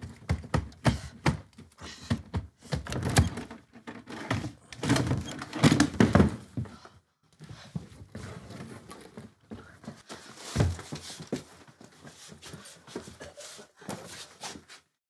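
Rummaging at a small wooden cabinet: a run of knocks, thunks and clatter, densest in the first half, then sparser knocks with one low thump about two-thirds of the way through.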